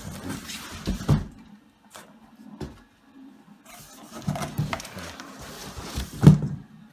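Handling sounds: rustling and scraping with several knocks, the loudest knock about six seconds in.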